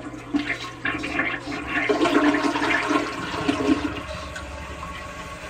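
Toilet flushing: water rushing and swirling down the bowl, loudest about two seconds in and easing off after about four seconds.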